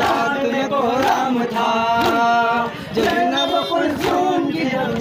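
Men's voices chanting a noha, a Muharram lament, led by one voice into a microphone. Sharp beats fall about once a second.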